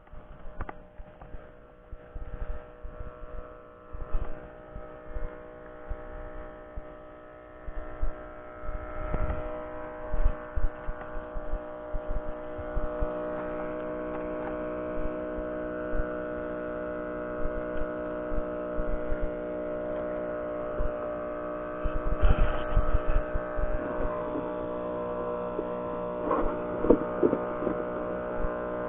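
A small engine running steadily with an even, many-toned hum, with scattered knocks and clicks of handling, busier near the end.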